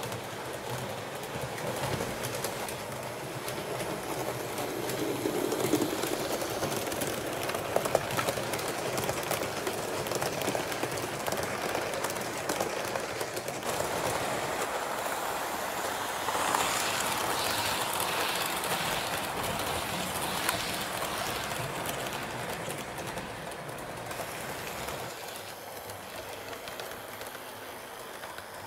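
HO scale model train running on its track: a steady rolling rattle with scattered clicks from the wheels on the rails.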